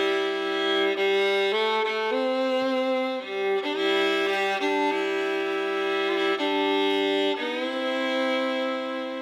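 Background country music: a fiddle playing slow, held notes over changing chords, settling on a last long chord that begins to fade near the end.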